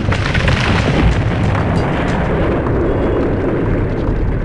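Volcanic eruption sound effect: a steady, heavy rumble with scattered sharp crackling pops.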